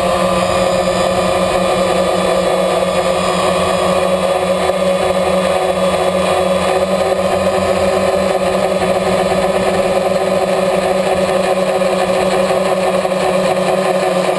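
DJI Phantom quadcopter's electric motors and propellers buzzing steadily in flight, picked up by the GoPro Hero 2 camera mounted on the drone.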